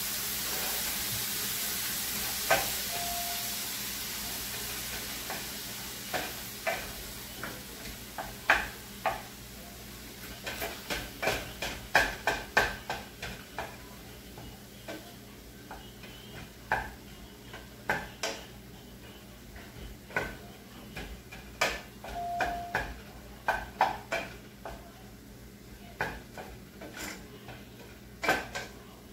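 Minced beef sizzling in a stainless steel skillet while a wooden spoon stirs, scrapes and taps against the pan, mashing the meat into small pieces. The sizzle is loudest at first and fades over the first ten seconds or so, leaving mostly the spoon's repeated taps and scrapes.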